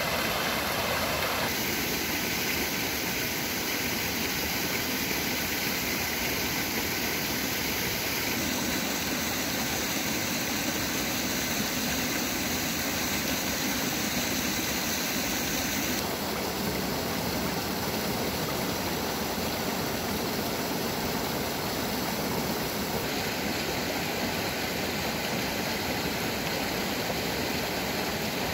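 Shallow mountain stream rushing over stones and through a small cascade, a steady rush of water. Its tone shifts abruptly a few times.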